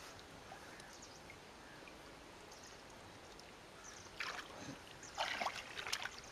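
Water splashing and sloshing as a fish net is worked by hand through shallow pond water. A quiet stretch comes first, then three short splashes in the second half.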